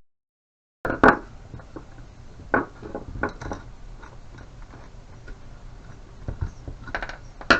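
Scattered clicks and knocks of hard plastic and metal fan parts and a screwdriver being handled while a floor fan's motor is taken apart. A brief stretch of dead silence at the start.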